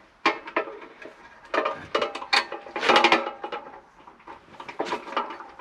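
Irregular metallic clicks and rattles as a chainsaw with a 28-inch bar and chain is handled and lifted for weighing.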